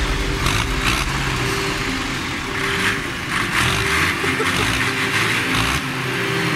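Two Zetor tractors' diesel engines running with a fairly steady engine note.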